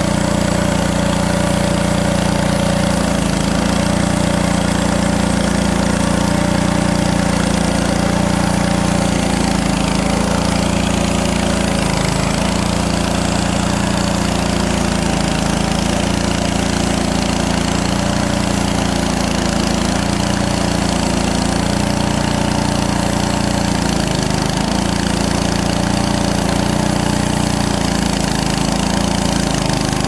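Frontier OS23 portable band sawmill running, its small gasoline engine held at steady speed while the band blade cuts through a log. The engine note wavers briefly every few seconds.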